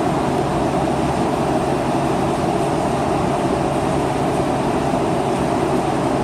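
Steady, loud machinery noise with a low hum underneath, holding constant without breaks.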